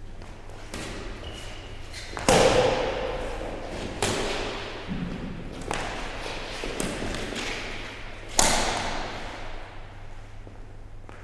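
Badminton racquets striking a shuttlecock in a rally: about eight sharp hits a second or two apart, each echoing in a hall. The hardest hits come about two seconds in and about eight seconds in.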